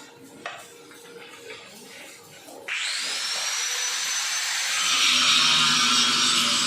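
Electric power tool starting up about two and a half seconds in. Its high whine rises quickly and then holds steady, and about two seconds later a louder, harsher grinding noise joins it, as the tool bites into the work.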